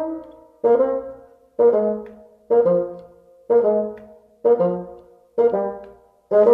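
Background music: brass instruments playing short, detached chords about once a second, each fading before the next.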